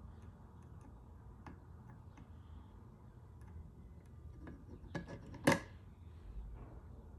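Faint, scattered small clicks and taps of hand tools working on an Xbox One controller's circuit board while its joystick is desoldered, with a sharper click just before the loudest one about five and a half seconds in, over a low hum.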